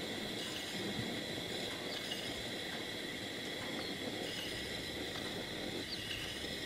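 Steady, high-pitched insect chorus rising from the grassland below, with a faint hiss of open air and no balloon burner firing.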